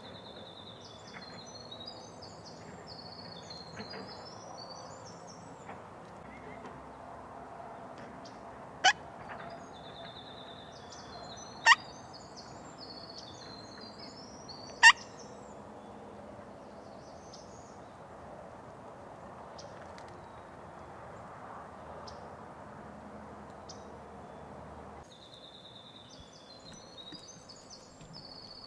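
Wild turkey calling at close range: three sharp, loud calls about three seconds apart, with quieter high bird song around them.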